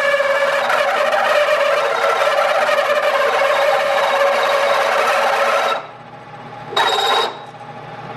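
Loud metal-on-metal squeal from two workpieces being pressed together and friction-welded on a lathe turning at 800 RPM. It holds several steady pitches, cuts off suddenly about six seconds in, and comes back briefly about a second later.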